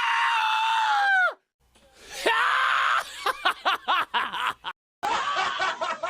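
A string of cartoon sound effects: a long, high scream held on one pitch that drops away about a second in, then after a short silence a rising swell and a fast run of short up-and-down warbling chirps, and near the end a quick choppy chatter.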